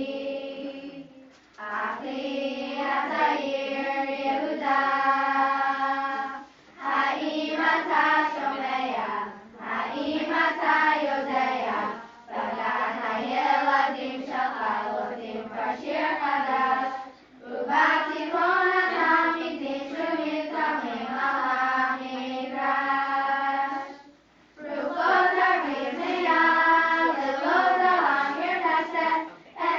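A group of young girls singing a song together in unison with no instrument, in phrases of a few seconds with short breaks between them.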